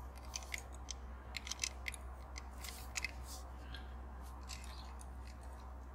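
Scattered faint clicks and taps of a diecast toy ambulance being handled and turned over in the fingers.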